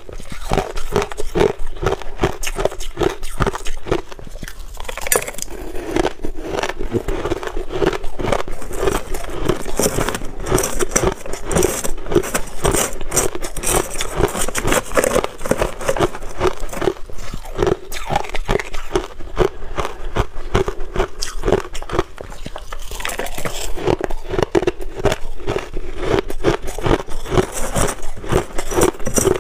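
Close-miked chewing of crushed ice: a rapid, steady run of crisp crunches, with a metal spoon scooping and scraping through crushed ice in a silicone bowl.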